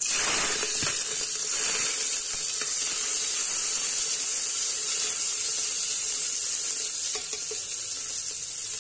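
Sliced onions dropped into hot oil and cumin seeds in an aluminium pressure cooker, frying with a loud sizzle that starts suddenly and carries on steadily, easing slightly near the end.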